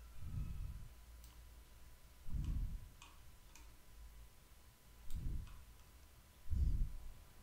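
A few light computer-mouse clicks, with four dull low thumps that are louder than the clicks.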